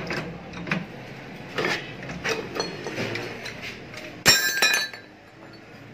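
Metal clinks and knocks as the cut-open steel shell of a refrigerator compressor and the vise holding it are handled, with one loud ringing clang about four seconds in.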